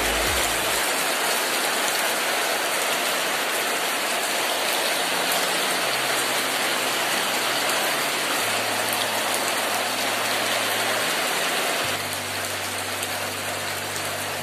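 Steady rain falling on a flooded, muddy yard and puddles: an even hiss of drops that eases slightly about twelve seconds in.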